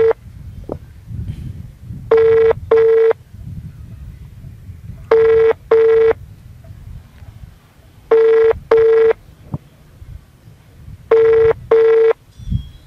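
Phone ringback tone from a smartphone's loudspeaker while an outgoing call rings unanswered: a double beep every three seconds, heard four times.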